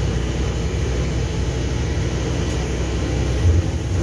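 Scania bus heard from the passenger saloon while under way: a steady low engine drone with road and body noise, with a brief louder low thump about three and a half seconds in.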